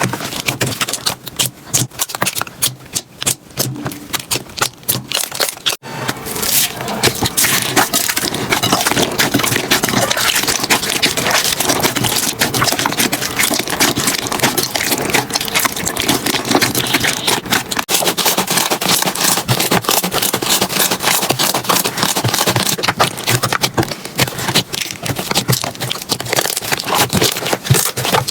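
Slime being squeezed and pressed by hand, with dense crackling and popping clicks. There is a brief break about six seconds in, after which the crackling is denser and louder.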